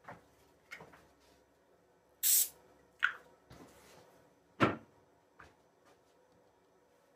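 Handling noises at a wooden workbench: a few scattered knocks of things being picked up and set down, with a brief hissing swish a little over two seconds in and the loudest thump about four and a half seconds in.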